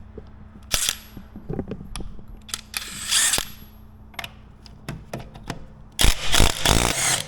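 DeWalt 20V brushless 3/8-inch cordless impact wrench hammering on a vehicle lug nut to loosen it. It runs in short bursts, the longest and loudest about six seconds in, lasting about a second.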